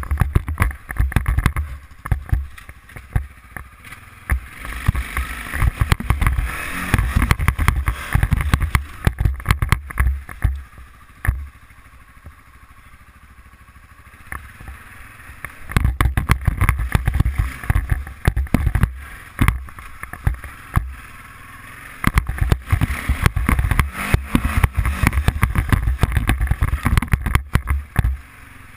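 Arctic Cat 500 ATV's single-cylinder four-stroke engine running as the quad is ridden over rough gravel-pit ground, with heavy wind buffeting and jolts on the helmet camera's microphone. It eases off for a few seconds about halfway through, then picks up again.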